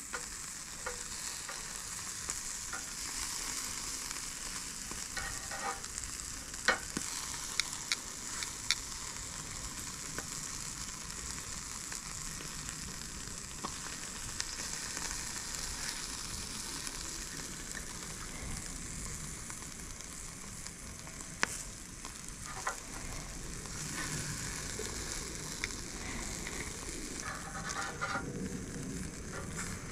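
Softshell crabs sizzling over hot charcoal on a grill's steel grate, a steady frying hiss. A few sharp metal clicks of tongs against the grate come in a cluster about seven to nine seconds in and again a little past twenty seconds.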